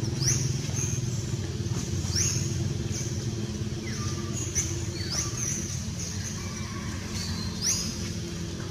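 A motor engine running steadily, with short high chirps every second or two above it.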